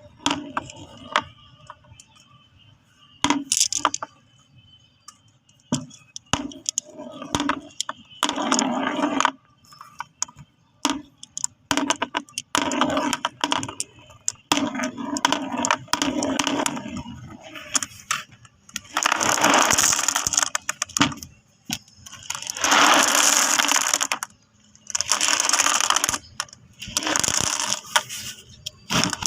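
Glass marbles clicking and clinking against each other: scattered single clicks at first, then several loud stretches of many marbles clattering together, each about a second long.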